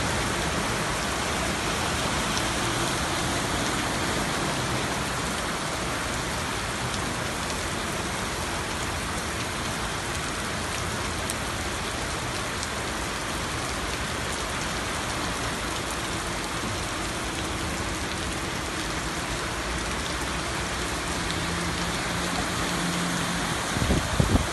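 Heavy rain pouring steadily onto a flooded street, a constant hiss. Near the end a van's engine hum comes up and water surges and splashes as it ploughs through the floodwater.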